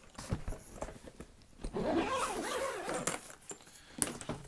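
Zipper on a carry-on suitcase being pulled shut, a rasping run in the middle, with sharp clicks and knocks as the case is handled.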